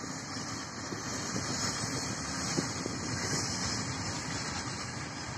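A distant Indian Railways freight train passing: twin WAG-7 electric locomotives hauling covered BCNA wagons, with a steady noise of wheels rolling on the rails.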